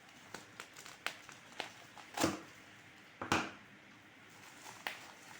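A parcel being handled and opened by hand: scattered small clicks and crinkles of packaging, with two louder rasping rips or rustles, about two and three seconds in.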